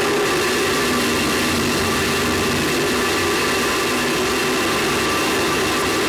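Steady rushing roar with a constant hum through it, picked up by a camera microphone mounted on a space shuttle solid rocket booster in flight.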